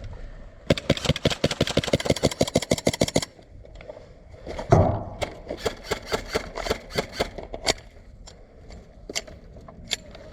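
Airsoft rifle firing a full-auto burst of about ten shots a second for roughly two and a half seconds. A loud thump follows about halfway through, then scattered single airsoft shots.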